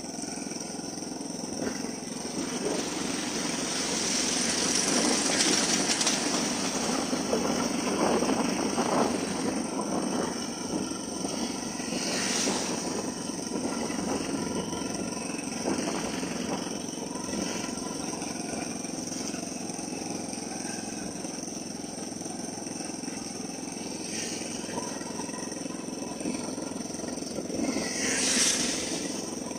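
Motorcycle engine running and road noise while riding steadily. Other vehicles pass, and an oncoming motorcycle goes by loudly near the end.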